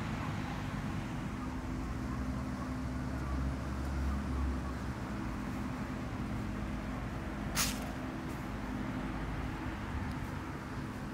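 Street traffic: a vehicle engine running steadily, swelling a little around four seconds in, with one short sharp hiss about seven and a half seconds in.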